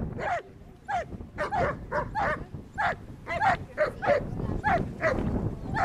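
Dog barking at a protection helper while guarding him: a rapid series of about a dozen sharp barks, each dropping in pitch, two to three a second.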